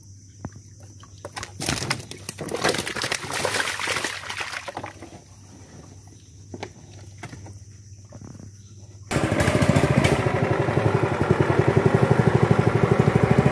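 Wire-mesh fish trap rattling and water splashing as the trap is handled at the side of a wooden boat. About nine seconds in, a small engine cuts in suddenly and runs steadily with a fast, even beat.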